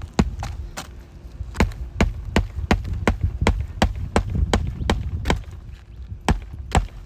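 Hammer driving roofing nails into asphalt shingles: a run of sharp knocks, about three a second, with short pauses between nails.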